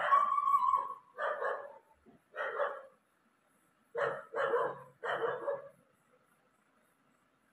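A dog barking about six times in a row, the first bark drawn out into a longer call.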